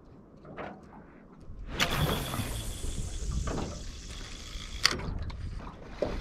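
A cast with a popping rod: a sudden swish about two seconds in, then line running off the reel with a steady high whine and hiss for about three seconds, ending in one sharp click.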